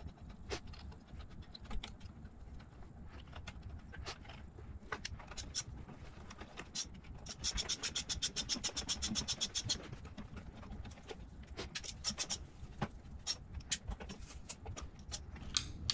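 Hand ratcheting screwdriver turning small machine screws: scattered light clicks and taps, with a rapid, even run of ratchet clicks, about ten a second, for a couple of seconds midway.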